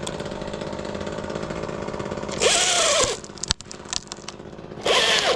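Chainsaw idling, then revved in two short throttle blips that rise and fall in pitch, about two and a half seconds in and again near the end.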